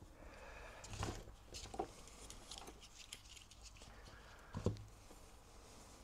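Faint handling noise on a workbench: a few light taps and clicks as a small metal vise is adjusted and a soldering iron is picked up, with one louder knock about four and a half seconds in.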